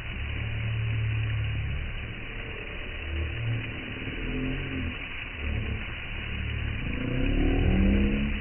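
An engine running, its speed rising and falling, loudest near the end.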